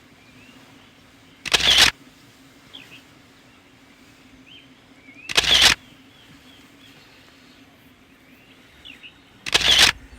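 Camera shutter sound, three times about four seconds apart, each a short loud burst. Birds chirp faintly.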